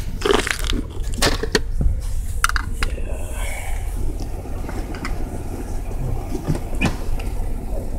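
Camera handling noise: rubbing and a series of sharp knocks and clicks as the phone is moved around inside the vehicle, over a steady low rumble.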